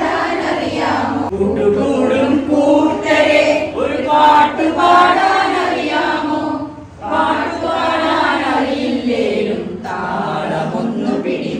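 A group of voices, mostly women's, singing a Malayalam song together in unison, with a brief pause between lines about seven seconds in.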